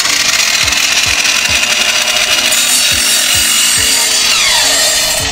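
Evolution sliding compound miter saw with a multi-material blade, running and cutting through a wooden board: a loud, steady sawing noise. Near the end a falling whine as the blade winds down.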